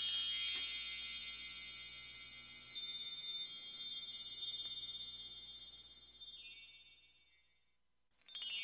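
Background music of high, tinkling chime notes, struck in quick succession and left to ring, fading out about seven seconds in. After a moment of silence, more chiming music starts near the end.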